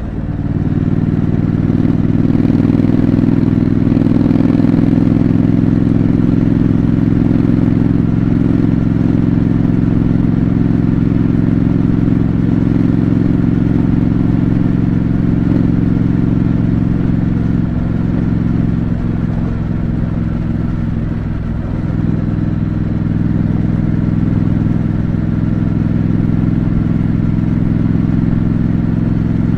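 Triumph Scrambler 900's parallel-twin engine through its stock exhaust, heard while riding: it opens up and gets louder in the first couple of seconds, then runs steadily under way. It eases off briefly about two-thirds of the way through before picking up again.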